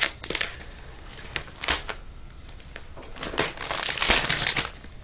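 Clear protective plastic film crinkling and crackling as it is peeled off the aluminium underside of a MacBook Pro. The crackles come irregularly and are thickest about three and a half to four and a half seconds in.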